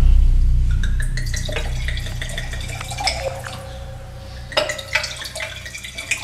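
Red wine poured from a bottle into a wine glass, trickling and dripping, with light clinks of glass, busiest near the end. A deep low note fades out during the first few seconds.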